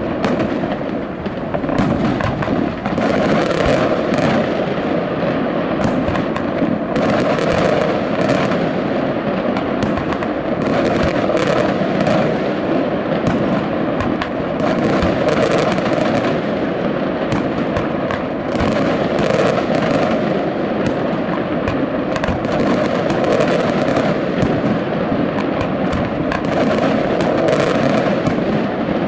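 Aerial firework shells bursting in a dense, unbroken barrage of bangs and sharp crackles.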